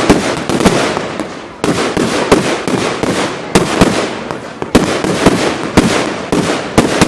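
Dense barrage of fireworks and firecrackers going off: sharp, overlapping bangs several times a second over a continuous crackle.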